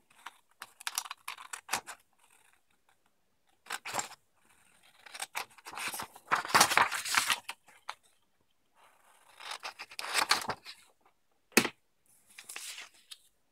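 Scissors cutting through a sheet of printed paper in irregular runs of snips with short pauses between. The longest and loudest run comes about six to seven and a half seconds in, and there is a single sharp click near the end.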